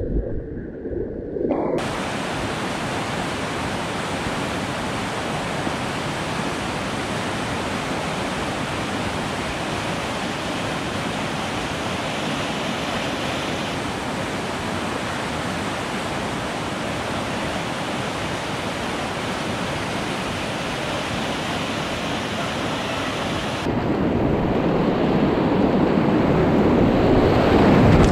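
Rushing whitewater around a kayak, a steady noisy rush of churning river water. It is muffled for the first two seconds, then opens up suddenly; near the end it turns louder and duller and swells.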